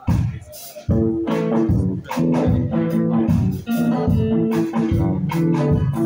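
Live reggae band playing an instrumental passage: drum kit, electric guitars and bass with sustained organ-like chords, the full band coming in about a second in on a steady beat.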